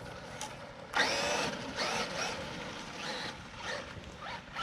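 Electric motor of a Traxxas RC car revving in several short throttle bursts, each a rising whine, as the wheels spin.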